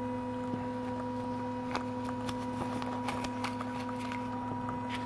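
Printrbot Simple Metal 3D printer humming steadily with several constant tones as it sits waiting to heat up and home, with a few light clicks in the middle.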